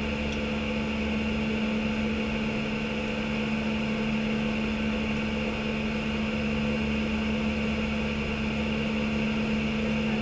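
Steady flight-deck noise of an Airbus A319 in flight: rushing air and ventilation with a constant hum, unchanging throughout.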